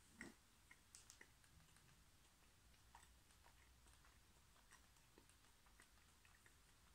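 Near silence: faint chewing of a mouthful of doughnut, with a few small clicks, the clearest in the first second.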